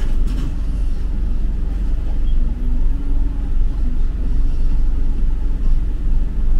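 Street traffic noise: a steady low rumble of road vehicles.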